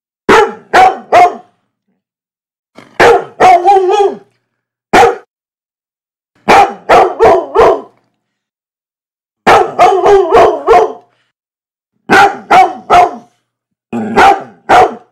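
Dog barking repeatedly in quick clusters of two to four sharp barks, with a pause of a second or two between clusters.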